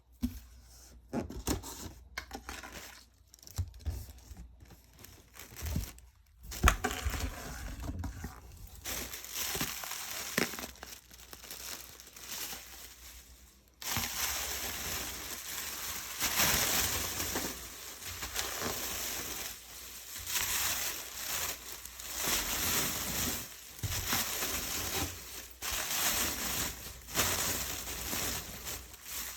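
A parcel being unpacked by hand: a few knocks and handling clicks at first, then long stretches of packing material being crinkled, torn and pulled out of the box.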